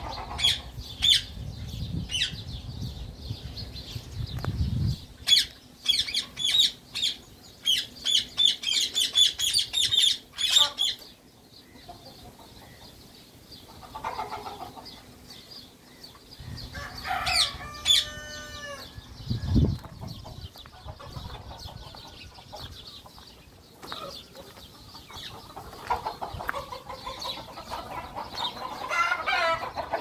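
Green parakeets squawking in quick, sharp shrieks through roughly the first ten seconds, then chickens clucking and calling. A run of falling calls comes just past halfway, and louder clucking builds near the end.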